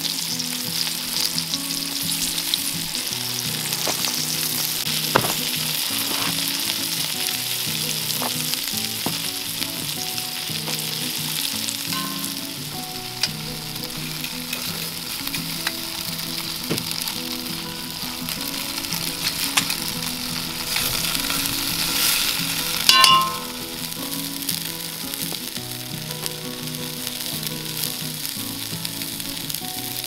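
Flour-coated venison cubes sizzling steadily as they brown in hot olive oil in a cast iron Dutch oven over campfire coals. A few sharp clinks come from a metal utensil turning the meat against the pot, the loudest about three-quarters of the way through.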